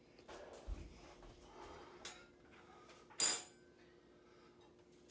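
Dishes and a metal spoon handled on a kitchen counter: a dull knock under a second in, a small click around two seconds, then one loud, sharp, briefly ringing clink a little after three seconds.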